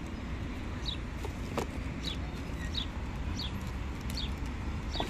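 A bird chirping over and over, short high notes that each fall in pitch, about two a second, over a steady low background rumble.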